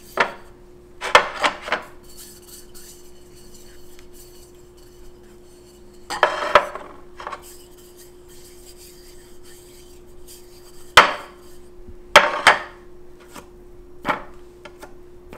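Glazed ceramic bowls handled, swirled and set down on a granite countertop: about six short clattering scrapes, the sharpest a single knock about eleven seconds in. A faint steady hum runs underneath.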